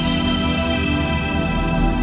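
Background music with long held tones over a pulsing low end.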